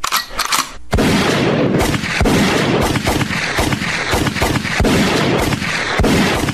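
Gunfire sound effect: a dense barrage of rapid shots and booms that starts about a second in.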